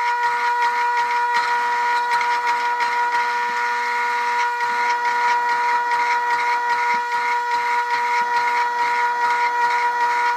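Hydraulic forging press running under load as it squeezes a red-hot wootz steel ingot: a steady, unchanging whine from the press's pump, with fast, irregular crackling ticks over it.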